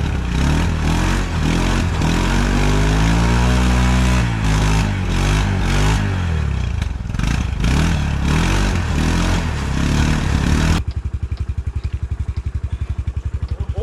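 CFMoto buggy engine revving up and down repeatedly under load, with clattering and scraping, as the stuck buggy is worked to free it. About eleven seconds in it drops abruptly to a steady idle.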